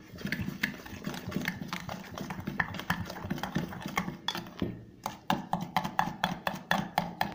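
Steel spoon stirring mashed banana and sugar in a stainless steel bowl, scraping and clicking against the metal. The clicks come faster and sharper in the last two seconds, several a second.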